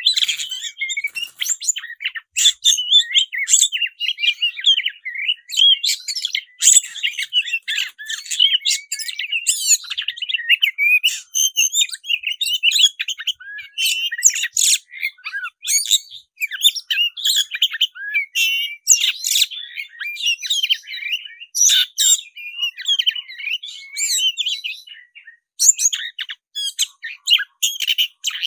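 Black-breasted oriental magpie-robin (kacer dada hitam) singing without a break: a fast, varied run of whistles, chirps and sharp, harsh clicking notes. It is the bird's loud fighting-mood song.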